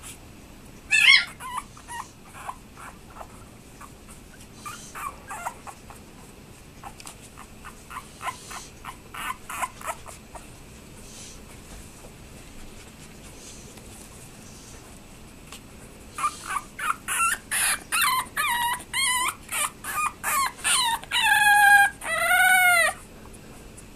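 Four-week-old bulldog puppy whimpering and whining in high, thin cries. There is a single cry about a second in and soft whimpers over the next several seconds, then a pause. Later comes a quick string of whines that ends in a few longer cries that rise and fall in pitch.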